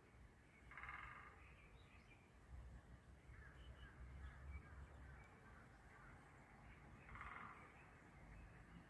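Crow cawing, faint: two short harsh calls, one about a second in and another near the end, with faint chirps of smaller birds between them.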